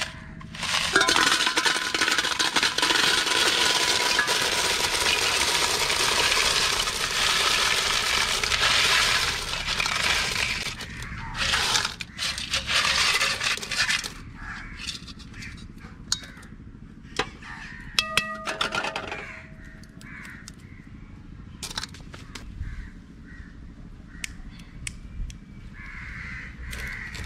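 Beach clam shells clinking and rattling in a cooking pot, after a loud rushing noise that lasts about the first ten seconds. Crows caw about eighteen seconds in.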